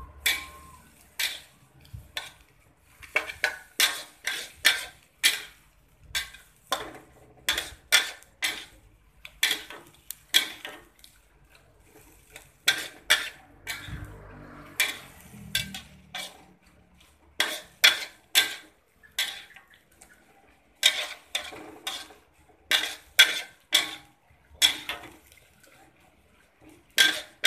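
A spatula knocking and scraping against a wok while vegetables are stir-fried. The sharp clinks come in irregular strokes of one to a few a second, with a short lull midway.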